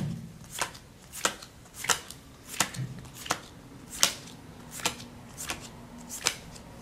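Playing cards dealt one at a time from the pack onto a pile, each card landing with a short light snap, about ten in a steady rhythm of roughly one every two-thirds of a second.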